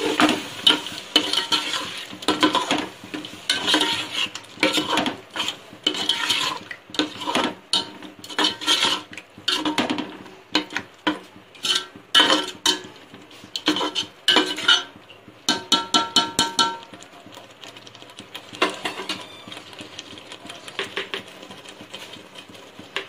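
Metal ladle stirring curry in a metal cooking pot, with quick repeated scrapes and clinks against the pot. About sixteen seconds in comes a fast run of ringing metal taps, and after that only a few soft scrapes.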